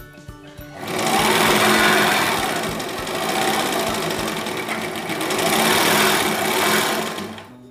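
Overlock (serger) sewing machine running at speed, stitching a seam in stretchy jersey fabric. It starts about a second in, runs steadily with a slight dip in the middle, and stops just before the end.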